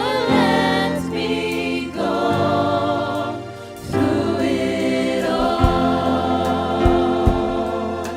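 Gospel worship team singing a slow song with band accompaniment, voices holding long notes, with a few drum beats in the second half.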